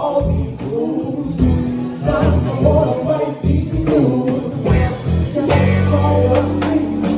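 A band playing at a jam: strong bass notes and guitar, with singing over them.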